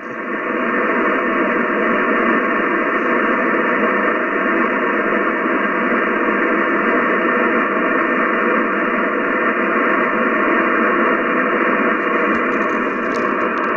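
Amateur HF transceiver receiving on 7.230 MHz in the 40-metre band with no signal on frequency: a steady hiss of band static through its narrow voice passband, brought up loud by the receiver's automatic gain between transmissions.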